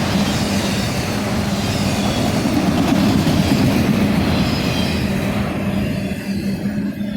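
Norfolk Southern autorack freight train rolling past, a steady rumble of wheels on rail. The higher rail noise drops away about five and a half seconds in.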